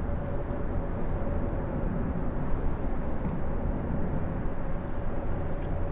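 Steady low rumble of traffic on the bridge overhead, with a faint steady hum through most of it.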